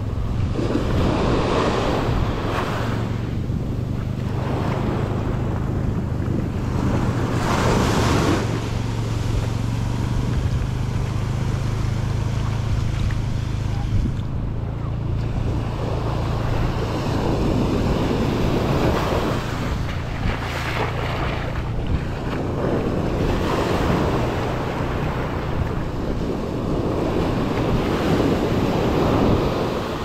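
Atlantic surf breaking and washing up the sand in waves that swell and ebb every few seconds, with wind rumbling on the microphone.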